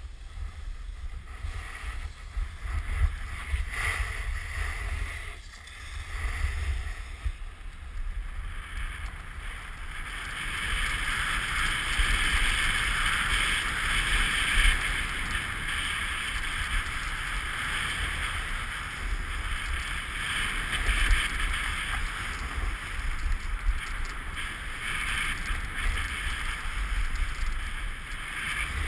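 Snowboard sliding over bumpy, cut-up snow: a steady scraping hiss that gets louder from about ten seconds in. Wind rumbles on the helmet camera's microphone.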